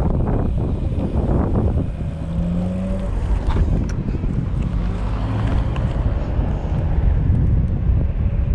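Strong wind buffeting the microphone, a loud, gusty low rumble, heard while riding a bicycle into a strong crosswind.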